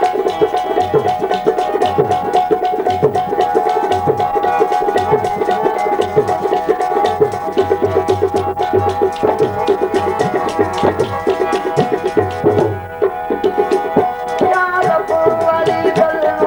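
Folk music instrumental passage: a harmonium holds a steady melody over a fast, continuous hand-drum rhythm.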